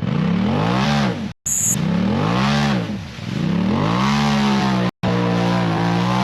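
Vehicle engine revving again and again, its pitch climbing and falling back in long swells, with the sound cutting out abruptly a few times. A brief high beep sounds about a second and a half in.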